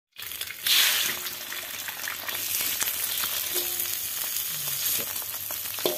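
An egg frying in hot oil in an aluminium wok: the sizzle swells up about a second in as the egg hits the pan, then keeps hissing steadily while a metal spatula scrapes at the egg, giving short scraping clicks. The egg is sticking to the wok, which the cook puts down to the wok's sticky surface.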